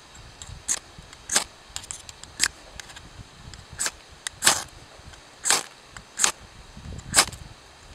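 A ferrocerium fire-starter rod scraped with a metal striker over a gas canister stove's burner to throw sparks and light it: about nine quick, sharp scrapes at uneven intervals.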